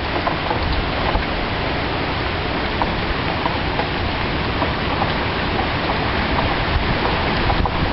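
Hurricane rain and wind: a steady, loud rushing noise of heavy rain driven by strong wind.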